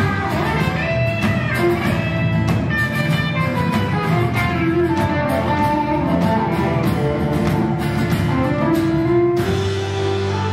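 Live band playing a guitar-led instrumental break, with strummed acoustic guitars, bass and drums. The drum hits stop about a second before the end, leaving held notes.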